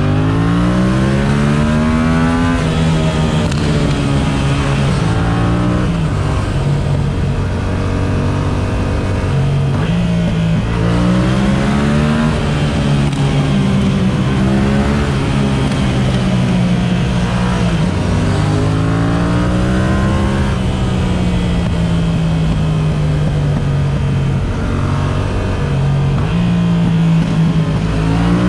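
Yamaha MT-07 parallel-twin engine through an Akrapovic exhaust, heard from the rider's seat inside a road tunnel. It rises in pitch several times as the bike accelerates and shifts up, with steadier cruising stretches between.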